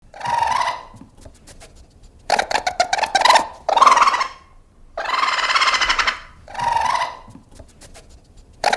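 An animal calling over and over: about six loud, harsh calls of up to about a second each, with short pauses between.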